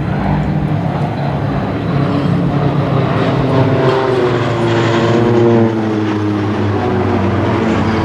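Formation of Embraer EMB 312 Tucano turboprop planes flying past with a steady propeller drone. Their pitch falls as they pass, about midway.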